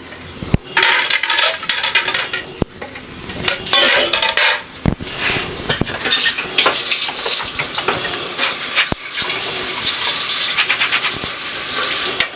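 Dishes and containers clattering and clinking in a kitchen sink, with running tap water hissing steadily from about halfway through.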